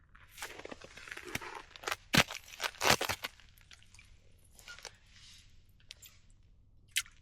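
Rustling and handling sounds, with sharp clicks or knocks a little after two seconds in, again near three seconds, and once more near the end.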